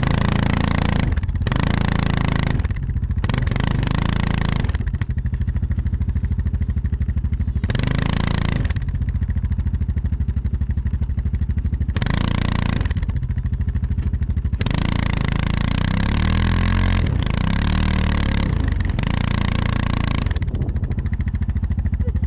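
ATV engine idling close by with an even low pulse, blipped up several times with short revs and then held up for one longer rev of about five seconds in the second half.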